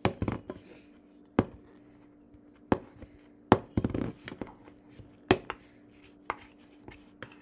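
Metal spoon knocking and scraping against a stainless steel bowl while mashing cream cheese with salad dressing mix, in irregular sharp clinks.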